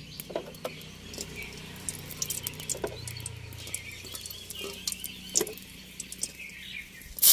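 Cooking oil poured in a thin stream into a large aluminium kadai, against a low steady hum and scattered faint ticks and chirps. Near the end comes a short, loud burst of hiss.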